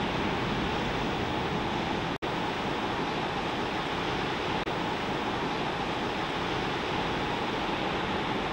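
Steady rushing noise of ocean surf breaking on a beach, with a sudden brief dropout about two seconds in.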